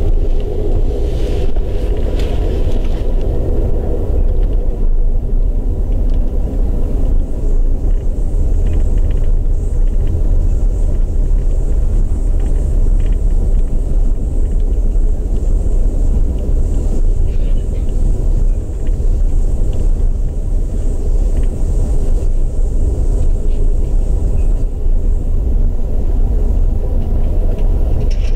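Amtrak Capitol Limited passenger train in motion, heard from aboard: a loud, steady low rumble of the running train, a little busier in the first few seconds, with a faint high hiss through much of the middle.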